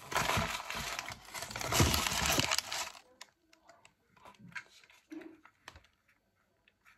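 Plastic wrapper crinkling and tearing as it is pulled open for about three seconds, then a few faint clicks of a small plastic toy being handled.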